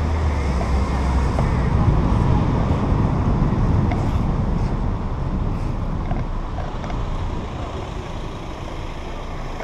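Car driving through town streets on wet asphalt, heard from a microphone mounted outside on the car: steady engine, tyre and traffic noise with wind rumbling on the microphone, loudest in the first few seconds and easing off later.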